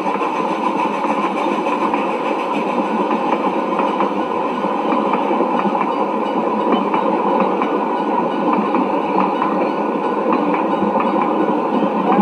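Train running sound effect: a steady, unbroken rail and running noise.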